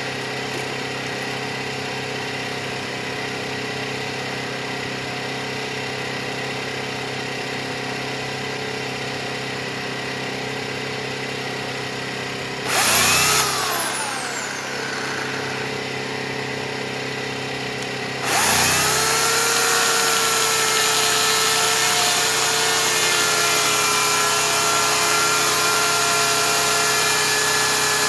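Portable generator engine running steadily. About halfway in, the Oregon CS 1500 15-amp electric chainsaw spins up briefly and winds down with a falling whine. A few seconds later it starts again and runs continuously to the end, its pitch dipping slightly as it makes an undercut in a tree.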